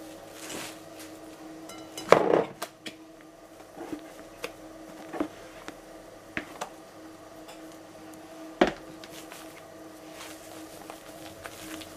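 Silicone spatula knocking and scraping against a glass mixing bowl and a plastic bowl as whipped egg whites are scooped into chocolate batter: scattered light knocks, the loudest about two seconds in and a sharp click near nine seconds, over a steady hum.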